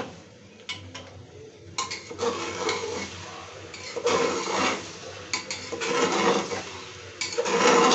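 A long metal ladle scraping and clinking against the inside of an aluminium pressure cooker as it stirs chickpeas in gravy, in repeated strokes that begin about two seconds in.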